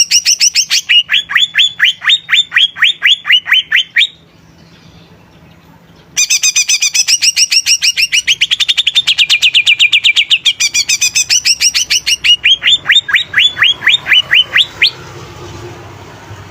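Green leafbird (cucak ijo) singing loud, fast series of sharp rising notes, about five a second. It pauses for about two seconds after four seconds, then sings again until about fifteen seconds in.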